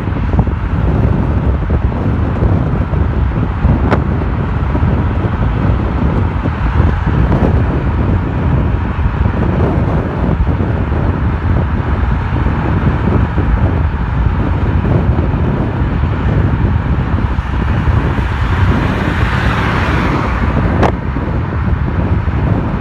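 Car driving in city traffic: steady engine and road noise, with traffic noise swelling briefly near the end.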